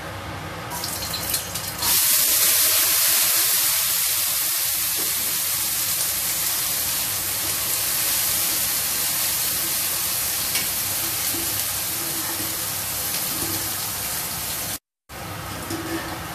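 Chopped red sambal ingredients sizzling in hot oil in a frying pan, with a loud sizzle that starts about two seconds in as they go into the pan. The sizzle keeps going while they are stirred, easing slowly, and cuts out for a moment near the end.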